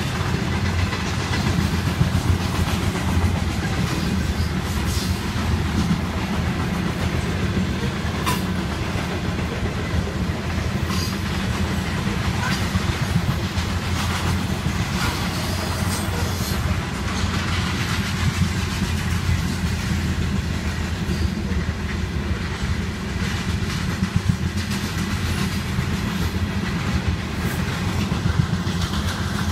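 Railway wagons rolling past in a steady low rumble, with the clickety-clack of wheels over rail joints, heard from inside a car.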